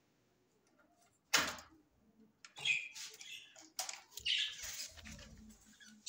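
Budgerigars chirping in an aviary, with a sharp knock about a second in and another near the middle.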